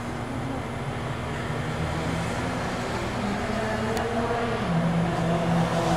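City bus engine idling, heard from inside the cabin while the bus waits in traffic, with a steady low hum. The hum grows a little louder near the end.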